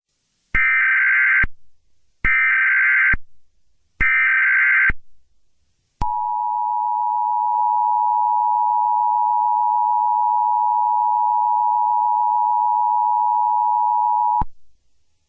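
Emergency Alert System tones: three roughly one-second bursts of buzzing digital data tones (the SAME header). These are followed by the steady two-tone attention signal, held for about eight seconds before it cuts off sharply.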